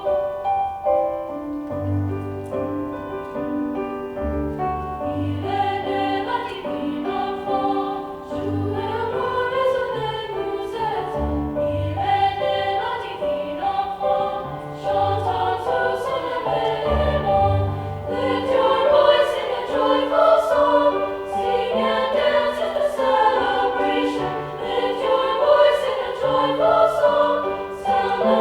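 High school vocal ensemble singing a French Christmas carol, with an accompaniment playing low bass notes about every two seconds.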